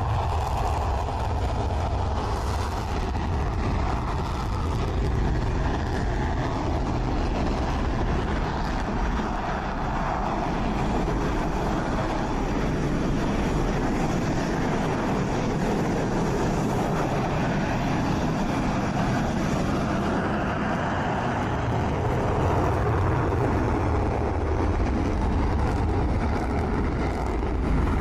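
Steady engine noise with a continuous low rumble.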